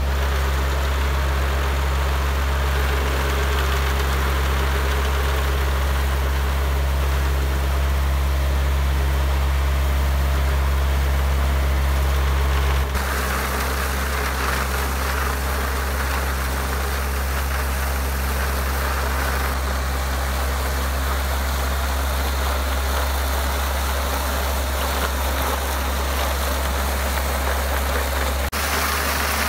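A John Deere tractor's diesel engine runs steadily under the harsh, even scraping of a front-mounted triple steel-wire weed brush working over cobblestones. The brushing gets louder after an abrupt change about halfway through.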